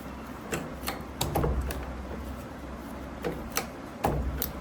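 Irregular light clicks and taps, about eight of them scattered unevenly, over a low steady hum.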